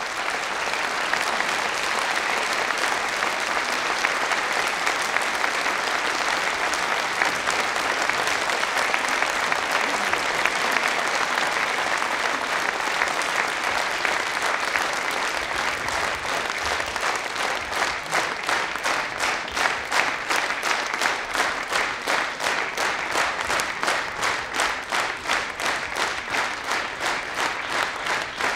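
A large theatre audience applauding; about halfway through the applause falls into clapping in unison to a steady beat.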